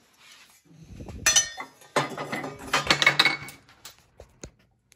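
Metal parts clinking and rattling as they are handled, with short ringing tones, for about two seconds past the first second, then a few single clicks.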